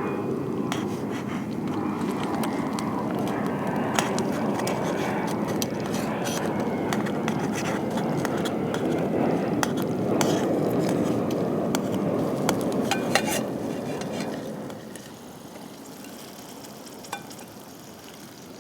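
Cooking over a campfire in an aluminium camp pot: a steady rushing sizzle with scattered sharp crackles and clicks, dropping away suddenly about fourteen seconds in.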